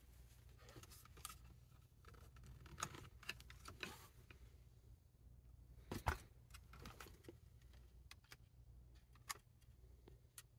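Faint, scattered small clicks and light rattles of handling, with one sharper knock about six seconds in, over a low steady hum.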